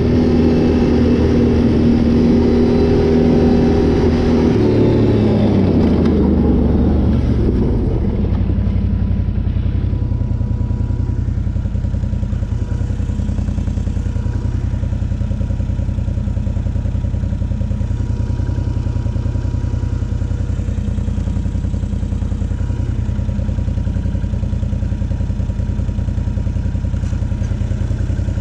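Can-Am Renegade 800 ATV's V-twin engine running under way, its pitch falling as it slows about five to eight seconds in, then settling into a steady idle.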